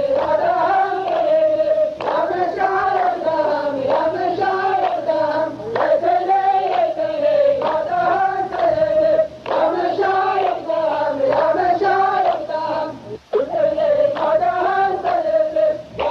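A men's chorus chanting a verse of qalta poetry in unison. The melody rises and falls in repeated phrases, with brief breaks between them.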